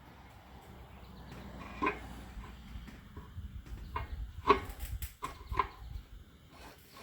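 Tire irons clinking and knocking against a motorcycle wheel rim as they are hooked under the tire bead: a few sharp knocks, the loudest about four and a half seconds in.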